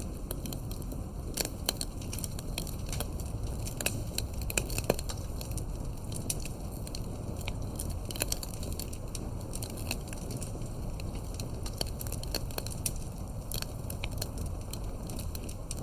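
Wood fire burning, with frequent irregular sharp crackles and pops over a steady low rumble of the flames.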